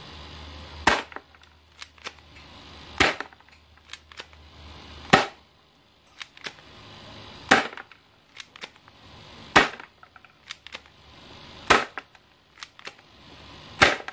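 Spring-powered airsoft MP900 pistol, cocked by hand for each shot, firing seven shots about two seconds apart, with lighter clicks between the shots.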